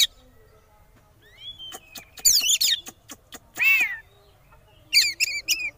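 Oriental magpie-robin (kacer) calling in the agitated 'konslet' style that keepers use as a provoking call for rival males. It gives short bursts of sharp, sliding notes and clicks, one longer note about four seconds in, and a quick run of four notes near the end.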